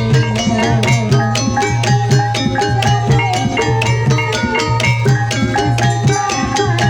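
Traditional Javanese gamelan music for an ebeg dance: fast, steady hand-drum strokes under ringing metallophone and gong tones, playing without a break.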